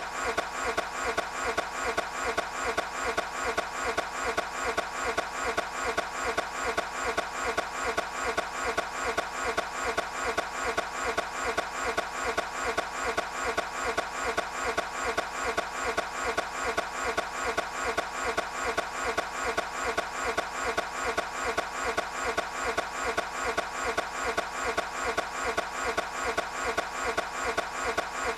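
Toyota 86 engine cranking on its starter motor without catching, an even repeating churn that goes on unchanged: the engine is failing to start.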